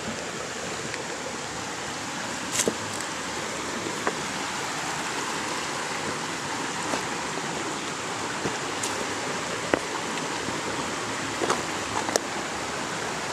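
Shallow creek water running steadily over rocks, with a few faint ticks scattered through it.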